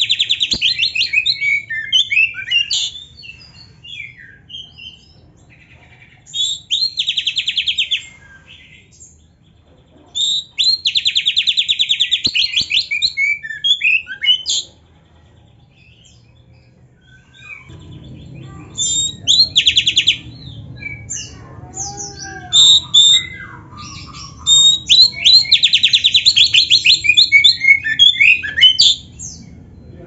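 Oriental magpie-robin (black-breasted kacer) singing: loud bursts of rapid buzzy trills mixed with varied whistled and chirped phrases, a song full of imitated phrases (isian). The bursts are separated by short pauses, with a longer lull about halfway, and a low hum sits in the background from then on.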